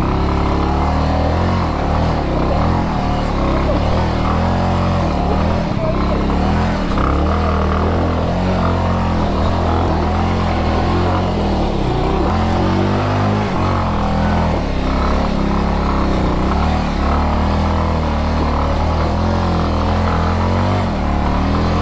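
Bajaj Avenger 220 motorcycle's single-cylinder engine running hard under load as it struggles up a steep, rough off-road climb carrying a passenger, its pitch wavering up and down with the throttle.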